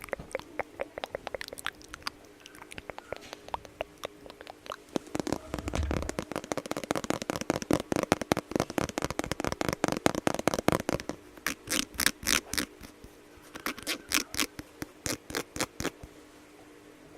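Close-miked ASMR tapping and scratching sounds: many quick, crisp taps that build into a dense flurry, then come in shorter clusters near the end, over a faint steady hum.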